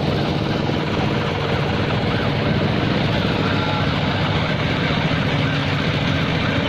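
Heavy engine idling steadily amid crowd voices. From about halfway through, a police siren yelps in the background, its pitch rising and falling about three times a second.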